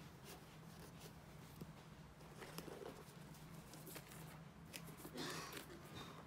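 Faint rustling and light taps of a leather sneaker being handled and turned over in the hands, with a longer rustle about five seconds in. A low steady hum lies underneath.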